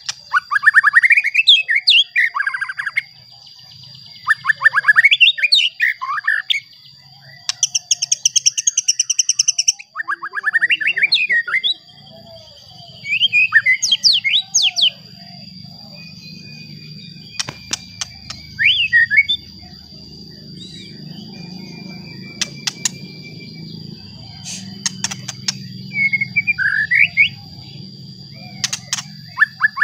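White-rumped shama singing: phrases of fast chattering notes, rising sweeps and a high trill, one every two to three seconds at first, then sparser short sharp notes. A steady thin high tone runs under the song throughout, and a low rumble comes in about halfway through.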